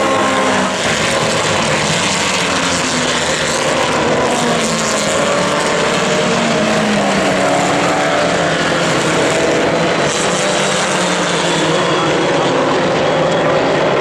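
Several historic Formula Vee race cars running at racing speed, their VW Beetle-based air-cooled flat-four engines sounding together, the pitch of each rising and falling as the cars accelerate and lift through the corners.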